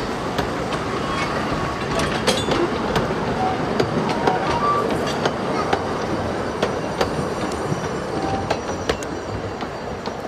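Narrow-gauge train rolling past, its wheels clicking over the rail joints, with a few short wheel squeaks.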